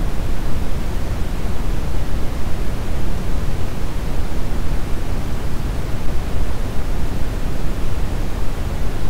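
Brown noise: a steady, deep rushing hiss with most of its energy in the low end, unchanging throughout.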